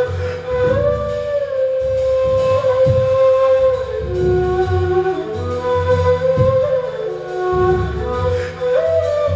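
Ney (end-blown cane flute) playing a slow melody of long held notes, stepping between pitches with short glides. Underneath it, a deep drum is struck with a soft mallet, roughly once a second.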